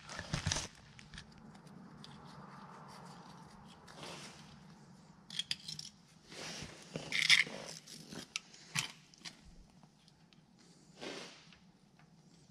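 Scattered short scrapes, rustles and small clicks of hands handling electrical wire and pliers. The loudest is a rustling burst about seven seconds in.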